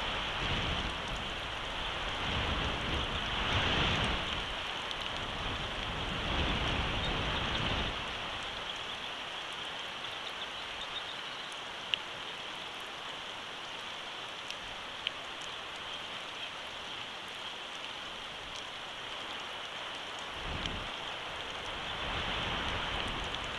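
Steady rain falling, heard as an even hiss, with gusts of wind rumbling on the microphone for the first several seconds and again near the end. A couple of sharp drip ticks stand out in the calmer middle.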